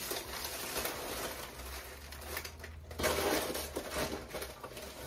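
Rustling and crinkling of items being pushed and packed into a cardboard shipping box, getting louder about three seconds in.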